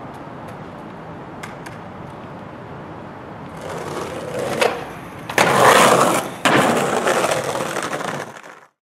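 Skateboard on a concrete bank: faint outdoor background, then urethane wheels rolling loudly over concrete with a sharp clack and two loud board impacts, the rolling fading away near the end.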